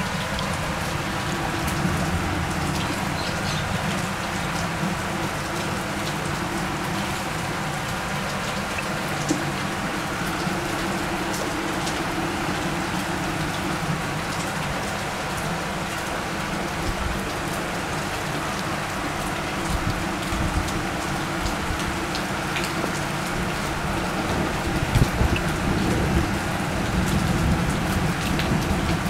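Water splashing and pattering steadily, with a low steady hum underneath and small scattered drips and clicks, a little louder near the end.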